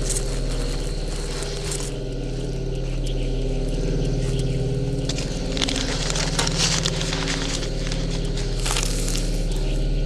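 Shovel scraping and crunching into loose dirt, in rough bursts loudest about halfway through and again near the end, over a steady low hum.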